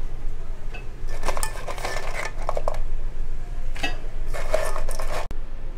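Raw crab pieces tipped into a metal pot of thick masala, hard shells clattering against the pot and a metal ladle in two bursts, about a second in and again about four seconds in.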